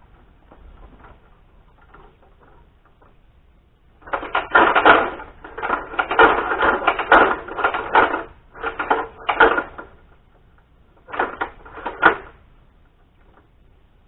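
Green fiberglass extension ladder clattering and rattling as it is lifted off a beam and stood upright. There are dense runs of clanks from about four seconds in, and two more short bursts near the end.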